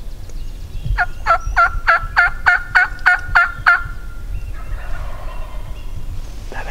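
Turkey yelping: a run of about ten evenly spaced yelps, about three a second, starting about a second in and stopping a little before the four-second mark.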